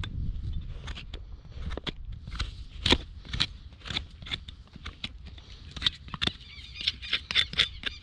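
Hoof knife paring the overgrown sole and frog of a neglected horse hoof: a run of short, sharp scraping cuts, coming faster near the end.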